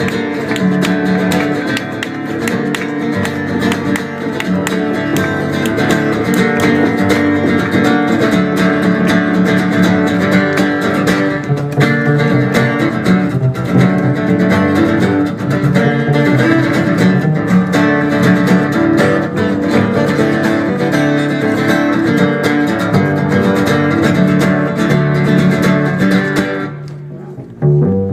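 Acoustic guitar playing a fast, strummed instrumental passage, dropping away briefly near the end.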